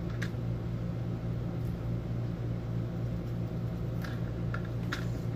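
Steady low machine hum, like a fan running, with a few light clicks and taps about four to five seconds in as plastic Play-Doh tools are handled on a countertop.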